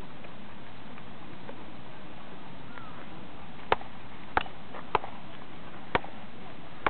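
Five short, sharp clicks at uneven intervals over a steady background hiss, starting about halfway through.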